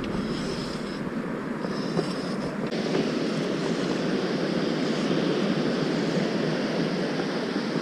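Small waves breaking on a sandy beach: a steady wash of surf.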